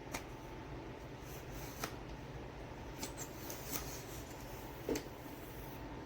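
Scattered light clicks and taps, about half a dozen, over a steady low hum; the loudest click comes near the end.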